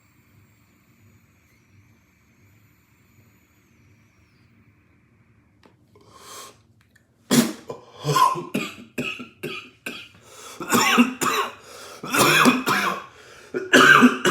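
A man coughing hard after a large cannabis vape hit. About six seconds of faint quiet, then a short breathy exhale, then a long run of loud, repeated coughs and throat clearing.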